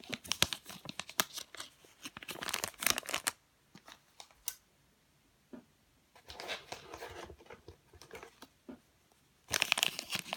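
Plastic packaging crinkling and tearing as small macaron squishies are pulled out of it, on and off, with a quiet stretch about four to six seconds in.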